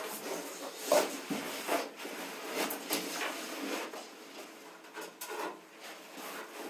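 Knocks, bumps and scraping as a person clambers up into a small cupboard, her body and flip-flops rubbing and knocking against its walls and edge. The loudest knock comes about a second in.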